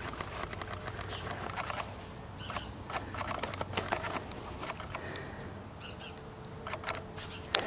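Metal harness hardware clicking and rattling as the dog's draft harness is fastened to the cart's aluminium shafts, ending with one sharp loud click near the end. A faint steady high whine sits underneath.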